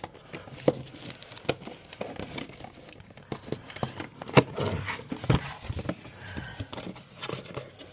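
A product box and its packaging being opened and handled by hand: irregular clicks, knocks and rustling, with a sharper knock about halfway through.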